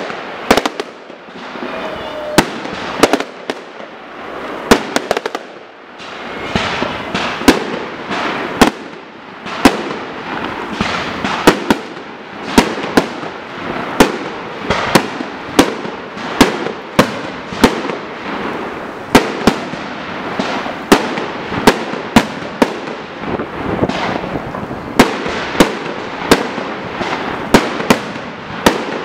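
Aerial firework display: a rapid run of sharp shell bursts, about one to two bangs a second, over a steady crackle. There is a short lull about six seconds in, then the bangs come thick and fast again.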